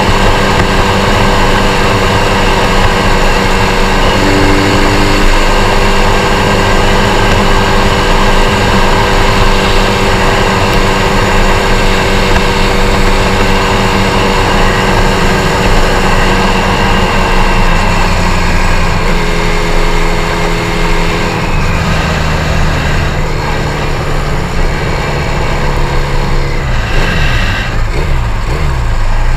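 Twin-engine Cub-type step-through moped running hard at high revs, with wind noise over the engine. The engine note shifts about two-thirds of the way through and falls in pitch near the end as the revs drop.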